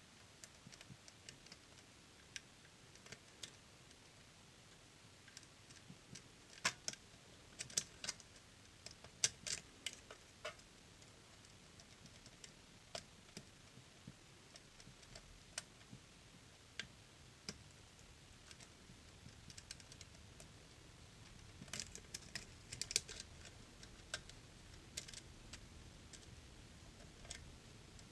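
Lock picks working inside a DOM System D dual-blade pin-tumbler lock: sparse, irregular tiny clicks and ticks, bunched into two flurries. These are the lock's faint feedback as pins are set.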